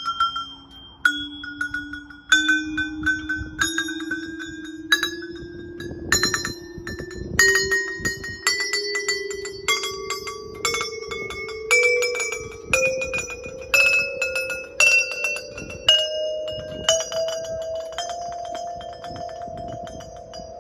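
Row of button-operated musical chime poles, sounded one after another about once a second, each ringing note a step higher than the last, climbing a rising scale. Near the end the last notes keep ringing together.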